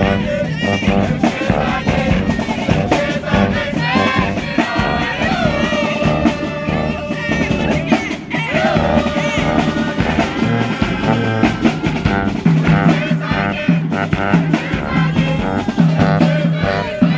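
High school marching band playing a brass arrangement: trumpets, mellophones, saxophones and sousaphones over a steady drum beat and a driving low bass line.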